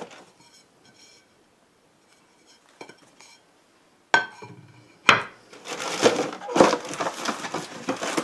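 Aluminium laptop-stand base plate set down on a wooden desk: two sharp metal clacks about four and five seconds in, the first with a short ring. Faint plastic crinkling before them, and cardboard packaging rustling and being handled after them.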